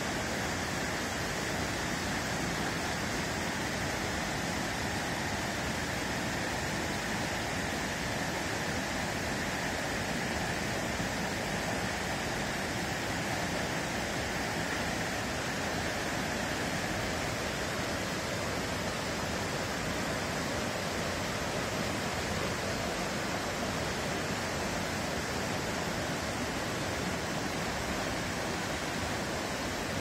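Stream water rushing over rocks and tumbling down small cascades: a steady, even rush with no letup.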